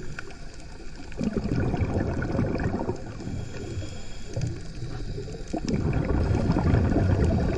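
Low underwater gurgling of bubbles, heard through a submerged camera, swelling louder about a second in and again near the end: a scuba diver's exhaled bubbles from the regulator.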